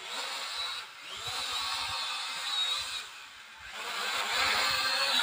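E88 toy quadcopter drone in flight, its small motors and propellers giving a high buzzing whine that wavers in pitch. It dips briefly twice and grows louder near the end.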